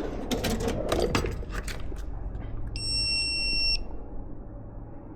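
Tools clicking and clattering as they are handled for about two seconds, then a single steady high-pitched electronic beep lasting about a second.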